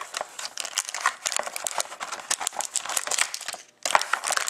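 Wrapped hockey trading card packs crinkling and crackling as they are handled and shuffled by hand, with a brief pause about three-quarters of the way through.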